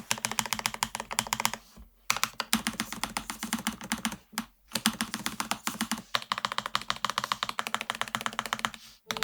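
Fast typing on a Lofree Flow Lite low-profile mechanical keyboard: a quick, continuous run of keystrokes with two brief pauses, stopping just before the end.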